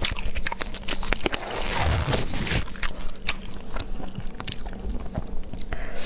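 Close-miked chewing and mouth sounds from eating spicy seafood: wet smacks and quick clicks, with a brief rustle about two seconds in.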